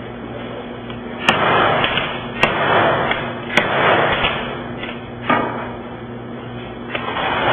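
Sledgehammer blows against the bottom of an impact-resistant TKO dock door: four sharp bangs about a second apart, each followed by a second or so of rattle from the door.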